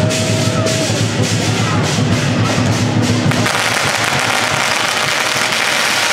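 Music with a steady beat, then about three and a half seconds in, strings of firecrackers start crackling in a dense, continuous rattle that drowns it out.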